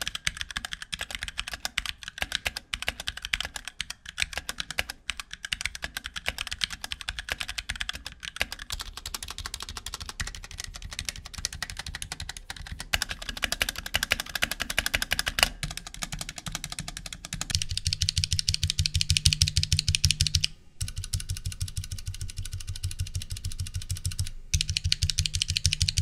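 Typing on a HyperX Alloy Origins mechanical keyboard with Aqua tactile switches: a fast, steady clatter of key presses. About two-thirds of the way through, the clatter turns deeper and more regular, with two short breaks near the end.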